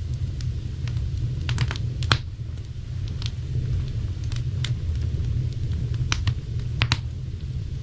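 Wood fire crackling, with sharp irregular pops every second or so over a steady low rumble.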